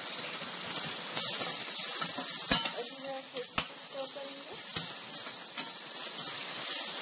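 Chopped onion, ginger and garlic with tomato purée sizzling in hot oil in a metal kadhai, stirred with a spatula. A few sharp knocks come from the spatula striking the pan as it stirs.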